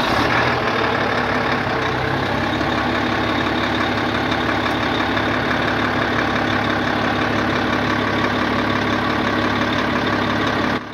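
Volvo L220H wheel loader's six-cylinder diesel engine idling steadily, heard up close at the radiator. The hydraulically driven cooling fan is not running, which is the fault being shown.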